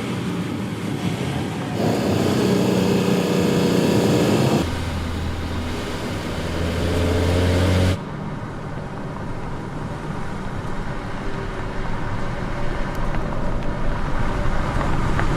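Porsche Cayenne E-Hybrid Coupé's turbocharged V6 running while the car drives, over road noise. The sound cuts abruptly to a different pitch and loudness about two, four and a half and eight seconds in.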